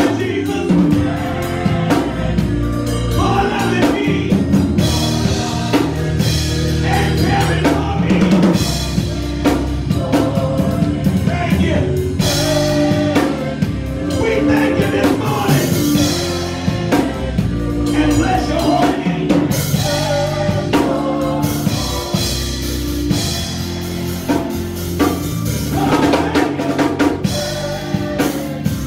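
Gospel song performed by a church praise team, a lead singer on microphone with the group, over a drum kit and band accompaniment keeping a steady beat.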